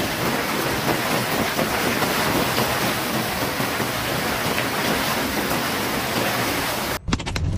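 Heavy rain pouring down in a steady, loud hiss. About seven seconds in it cuts off suddenly to a quick run of sharp taps over a low rumble.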